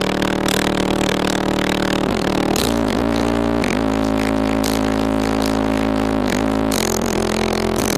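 Very loud bass-heavy music played through a car audio system with two 15-inch Ground Zero Plutonium subwoofers. Deep held bass notes change pitch every second or few, with short bursts of buzzing and rattling on top.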